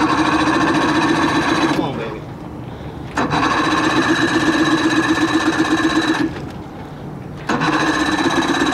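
1987 Johnson 40 hp two-stroke outboard cranked on its electric starter with the choke on, three times in a row: a fast, even chugging that starts and cuts off sharply each time, and the engine doesn't catch.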